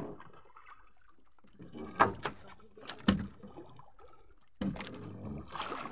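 Water sloshing and lapping around a small wooden fishing boat, with two sharp knocks about a second apart near the middle. The water noise grows louder near the end.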